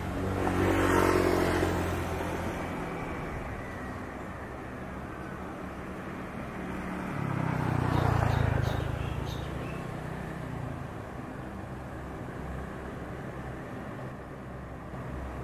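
C-130 Hercules' four Allison T56 turboprop engines running steadily while it taxis, a low continuous drone with steady tones. Two louder passes rise and fade over it, one about a second in and one about eight seconds in, each falling in pitch as it goes by.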